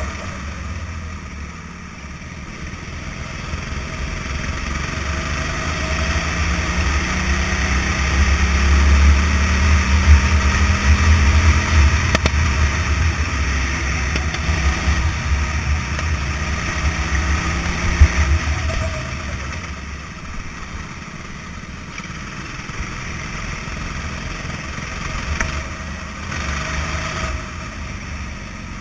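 Go-kart engine running as the kart drives round the track, heard from the driver's helmet, with a heavy low rumble; it grows louder through the middle and eases off after about eighteen seconds, with a sharp knock just before it drops.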